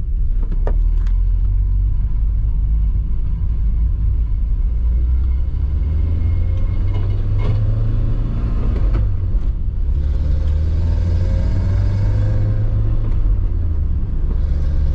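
Nissan 240SX's KA24E 2.4-litre four-cylinder engine and road rumble heard from inside the car while it is driven and accelerated through the gears. The engine note rises partway through.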